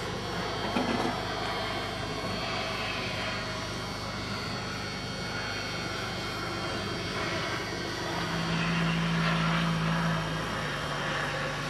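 Steady aircraft engine noise at an airfield, with a low hum that grows louder about eight seconds in and drops slightly in pitch a couple of seconds later.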